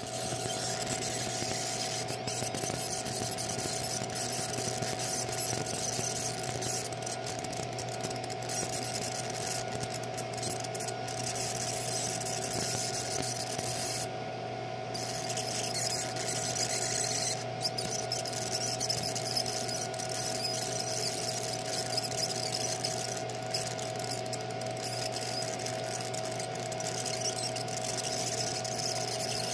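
Laser engraver marking a design into a black metal belt clip: a steady high hiss and whine over a steady hum. The hiss stops for about a second partway through, then resumes.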